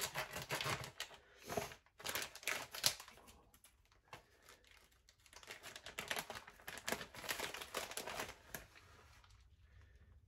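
Plastic bag of shredded mozzarella crinkling and rustling as it is opened and handled, in two stretches of crackly rustling that die away about a second before the end.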